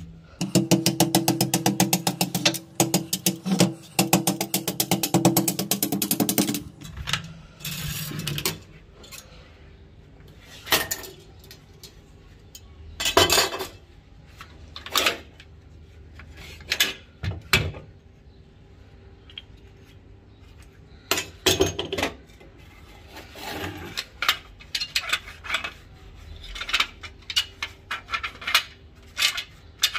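Rapid, even hammer blows on the rusty steel of a light machine gun for about the first six seconds. Then scattered metallic clinks and knocks as the gun's steel parts are handled and set down on concrete.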